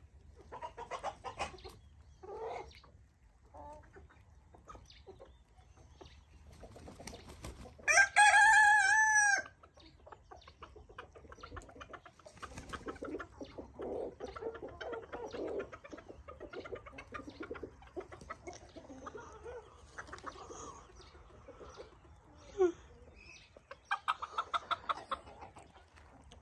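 Chickens clucking on and off, with a rooster crowing once, loud and about a second and a half long, about eight seconds in. A quick run of clucks comes near the end.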